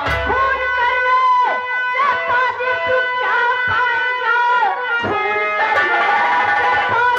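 Stage folk-theatre music, amplified: a woman singing in a wavering, ornamented line over a sustained reed instrument, with a dholak hand drum beating.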